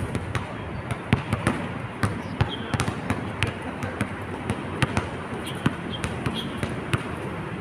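Basketball bouncing on a hard outdoor court: sharp, irregular knocks, about two a second, over a steady background hiss.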